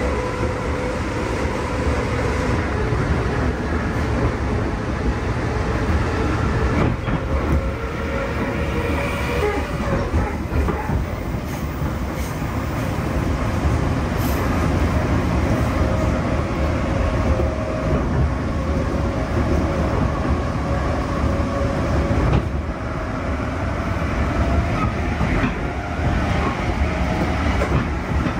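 JR East 211 series electric multiple unit with field-added excitation control, running on the line and heard from inside the passenger car: a steady wheel-and-track rumble with a faint steady whine, and an occasional click from the rail joints.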